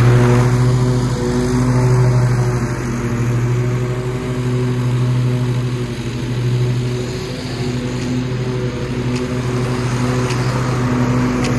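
Cub Cadet zero-turn riding mower running steadily while mowing, a constant engine hum. It grows fainter as the mower drives away and louder again near the end as it turns back.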